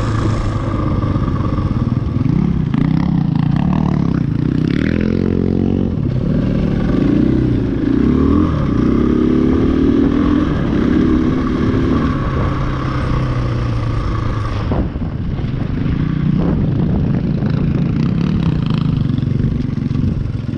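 KTM 500 EXC-F single-cylinder four-stroke dirt bike engine running under load on a trail ride, its pitch rising and falling repeatedly as the throttle opens and closes.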